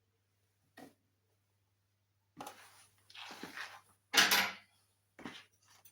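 Handling sounds of a domestic sewing machine being threaded: a few irregular rustles and clicks as the upper thread is drawn through the machine's guides, the loudest one a little past the middle.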